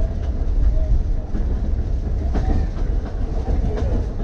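Key System 187 electric railcar running along the track: a steady low rumble of wheels and running gear, with a few clicks as the wheels pass over rail joints.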